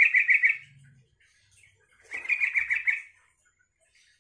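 Yellow-vented bulbul singing two short phrases of rapid repeated notes, each about a second long: one finishing about half a second in, the next about two seconds in.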